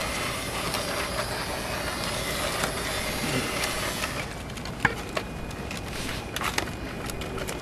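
Small battery-powered motor in a toy diorama base whirring steadily as it turns the skateboarding figure around, stopping about four seconds in. Then a few sharp clicks of the plastic and cardboard display box being handled.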